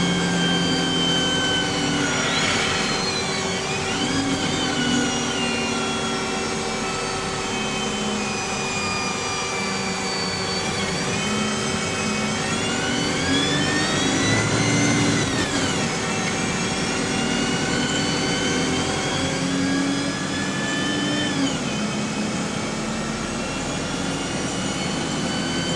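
Bus's engine and Voith automatic gearbox running under way, heard on board. The gearbox gives a whine that rises and falls in pitch several times, with drops a few seconds in, around the middle and near the end.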